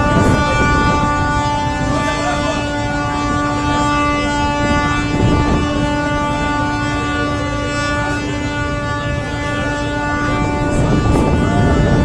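Ships' horns sounding one long, unbroken celebratory blast, a deep steady tone, with people's voices rising over it at moments.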